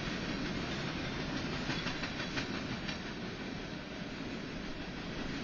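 Freight train of open-top hopper cars rolling past: a steady rumble of steel wheels on rail, with a quick run of clacks about two seconds in.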